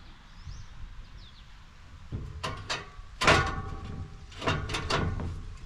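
A few sharp, ringing metal clanks and scrapes, the loudest about three seconds in, with faint bird chirps in the first second.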